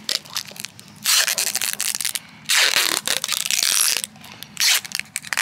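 Brown packing tape being pulled off its roll and wound tightly around a grafted olive stump: three loud rasping pulls, about a second each, the last one shorter, binding the bark firmly against the grafted scions.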